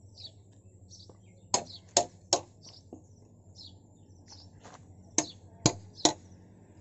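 A small axe chopping into the wooden beam of a hand-made plough: two runs of three sharp blows about half a second apart. Small birds chirp between the blows.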